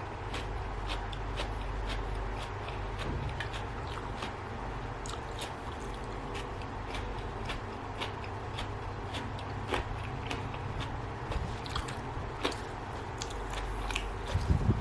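Close-up eating sounds: a mouthful of spicy seafood instant-noodle salad being chewed, with irregular wet clicks, smacks and crunches over a steady low hum.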